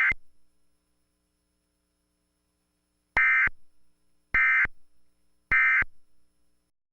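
Short bursts of Emergency Alert System digital data tones: one cuts off right at the start, then after about three seconds of near silence come three identical bursts a little over a second apart, the pattern of the alert's end-of-message signal.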